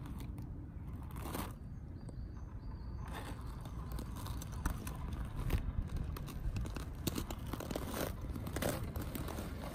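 Crusty, icy snow crunching and crackling under the knobby tyres of a Cross-RC UC6 Ural 4320 6x6 scale RC truck as it crawls through a snow heap. The crackles are irregular and come thicker from about three seconds in.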